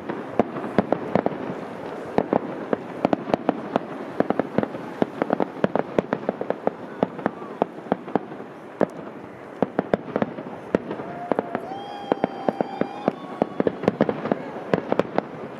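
Fireworks display: a dense, continuous run of sharp pops and bangs, several a second, over a steady hiss. A brief high tone rises above the crackle about twelve seconds in.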